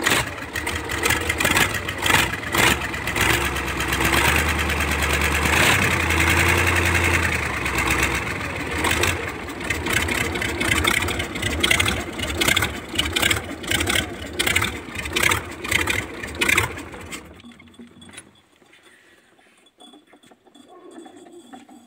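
YaMZ-238 V8 diesel engine running with an uneven knock, revved up about four seconds in and settling back. It is shut down and dies away about seventeen seconds in.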